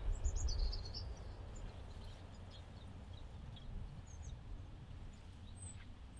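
Quiet outdoor ambience: a steady low rumble with faint bird chirps, a few in the first second and short high whistles near the end.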